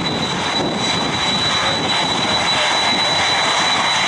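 Boeing 787-8 Dreamliner's twin turbofan jet engines at climb power as the airliner climbs away after takeoff: a loud, steady jet roar with a thin, steady high whine.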